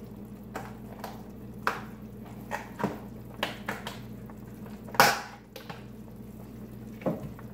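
Scattered clicks and knocks of containers and utensils being handled on a kitchen counter, the loudest knock about five seconds in, over a steady low hum.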